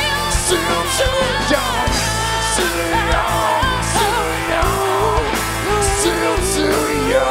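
Live rock band playing: a woman sings the lead over acoustic guitar and drums. Her held notes waver in a vibrato in the second half.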